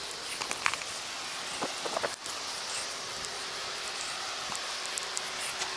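Steady hiss of rain, with a few sharp clicks and taps in the first couple of seconds.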